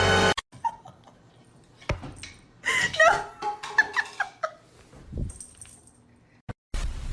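Short animal calls, several in quick succession about three to four and a half seconds in, each bending up and down in pitch, after a few seconds of music that cuts off at the start.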